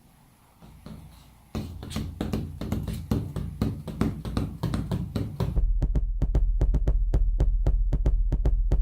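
A percussive beat of taps and knocks starts about a second and a half in after near quiet. About halfway through, a steady deep bass pulse joins under fast, even clicks, about five a second.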